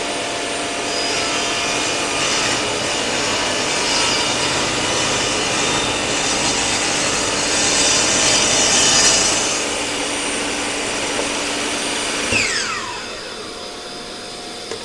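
Power saw running and cutting a test groove into a plywood offcut, the noise swelling as the blade bites. Near the end it is switched off and winds down with a falling whine.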